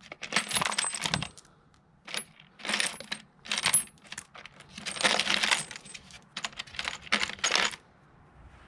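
Loose metal bolts and nuts clinking and rattling as a hand rummages through a pile of hardware looking for a bolt. The sound comes in four or five clattering bursts of about a second each, with brief metallic rings.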